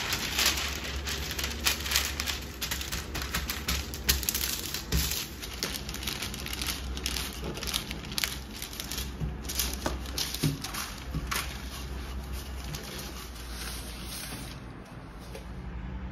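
Baking paper crinkling and rustling in irregular bursts as pastry dough is pressed and rolled out between the sheets with a wooden rolling pin. It eases off near the end.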